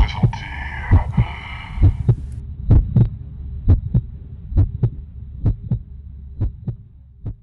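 Heartbeat sound effect: paired low thumps, lub-dub, about once a second over a steady low hum. A higher airy layer stops about two seconds in, and the beats fade near the end.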